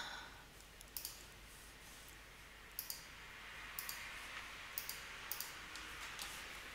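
Computer mouse clicking: about six faint, sharp single clicks at uneven intervals roughly a second apart, over a low steady hiss.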